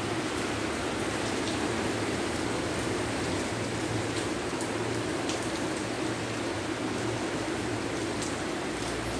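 Heavy rain falling steadily on a pergola roof and garden foliage, an even hiss with a few separate drops ticking through it.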